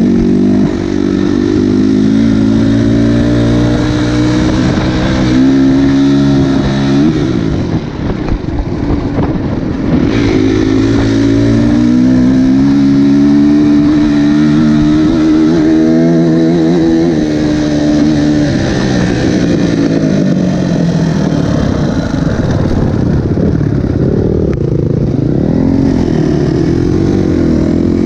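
Dirt bike engine heard from on the bike while riding, its revs climbing and falling with the throttle. It drops off briefly about eight seconds in, then pulls again.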